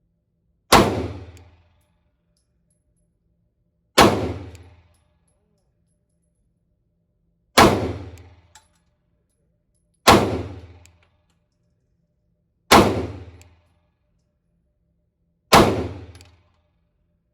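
Six single 9mm shots from a Glock 45 pistol, fired slowly about three seconds apart, each a sharp crack with a short ringing tail.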